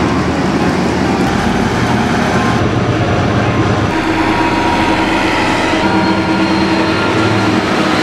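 Deutz-Fahr 6060 HTS combine harvester's diesel engine running as the machine travels, a steady mechanical drone with engine tones. The sound changes abruptly about two and a half and four seconds in.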